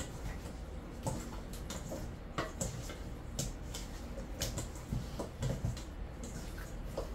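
Raw chicken pieces being mixed and rubbed with seasoning by hand in a stainless steel bowl: irregular wet squelches and small clicks.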